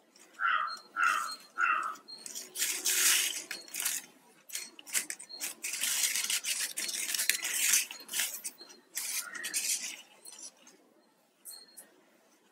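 Plastic weaving wire strands rustling and scraping as they are pulled through a tight woven knot, with scattered small clicks. About half a second in come three short squeaks.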